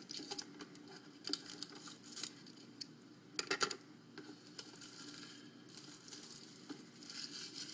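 Plastic wrap and cardboard of a sealed hockey card box crinkling and rustling as the box is handled and opened by hand, with scattered small clicks and taps. The loudest run of crackles comes about halfway through.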